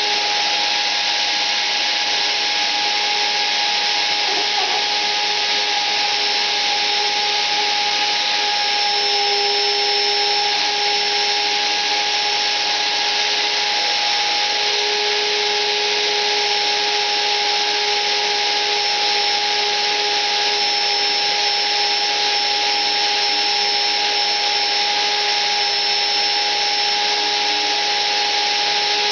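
Electric motor driving the rotary cutter of an ornamental-turning rose engine, running steadily with a whine and a strong hiss, its pitch shifting slightly a few times as the cutter works the wood.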